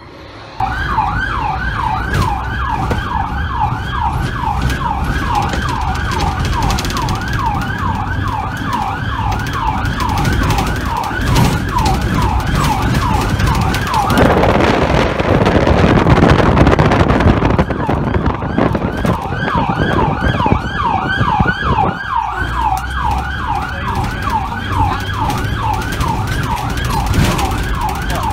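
Electronic yelp siren of a fire brigade rescue vehicle heard from inside the cabin on the move, rising and falling quickly several times a second. About halfway through it gives way for a few seconds to a louder rushing noise, then the yelp returns.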